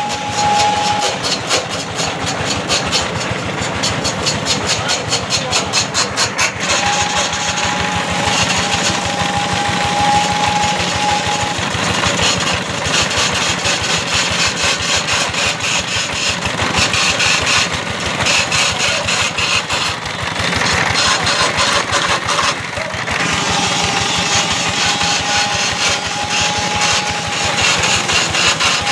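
Simple homemade lathe turning a coconut-wood pole, its drive running steadily while the cutter works the wood, with rapid regular chattering in the first several seconds. A steady high whine comes and goes twice.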